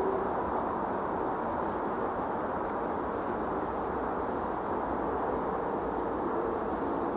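Steady outdoor background noise, with faint, short high-pitched chirps repeating about once a second.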